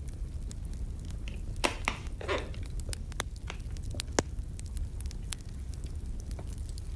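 Wood fire crackling: irregular sharp pops and snaps over a steady low rumble, with a couple of louder, longer crackles about two seconds in.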